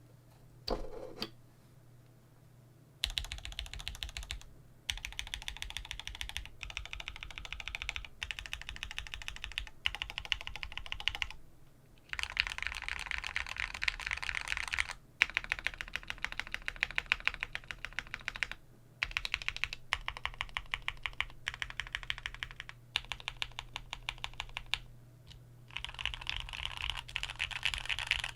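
Typing on a Qwertykeys QK100 mechanical keyboard, soft gasket-mounted with a carbon-fibre plate and foam, fitted with stock Gateron Oil King linear switches and DCX keycaps. A couple of single key presses about a second in, then from about three seconds on fast runs of keystrokes in bursts with brief pauses between them.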